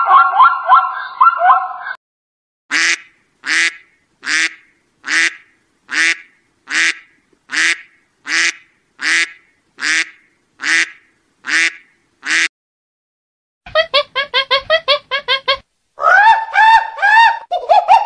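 Mallard duck quacking: a steady series of about thirteen loud quacks, a little under one a second. Before them a run of wavering animal calls ends about two seconds in. After them come a quick burst of short pulsed calls and then a string of pitched calls.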